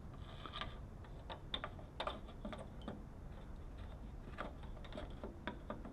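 Faint, irregular light clicks and taps of a door lock cylinder being worked into its hole in the door, turned about to find the way it fits.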